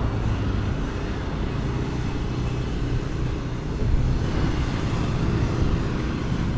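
Steady road traffic on a dual-carriageway highway: passing vehicles' engines and tyres, a constant rumble with no single event standing out.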